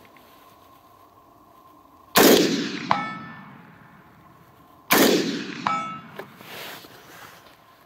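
Two shots from a Colt 6920 AR-15 in 5.56mm, about three seconds apart, each with a long echo tail. Roughly two-thirds of a second after each shot comes the faint metallic ring of a distant steel target being hit.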